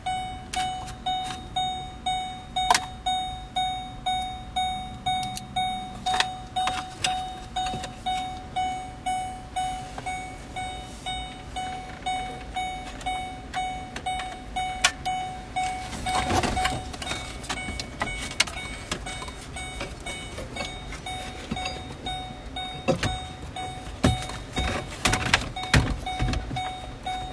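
A car's warning chime repeats steadily, about one and a half dings a second, with scattered clicks and a few knocks of plastic trim and connectors being handled.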